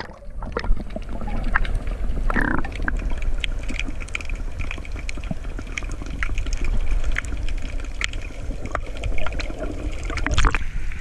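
Underwater sound through a submerged camera in the sea: a steady, muffled low rumble of moving water with scattered sharp clicks and crackles.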